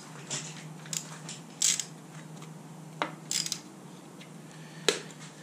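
Sharp metallic clicks and ticks, about six of them at irregular intervals, over a faint steady hum, as jacking bolts in the lift holes of a VQ37VHR lower cylinder block are turned with a stubby wrench. The clicks are the sound of the lower block starting to break free from the upper block.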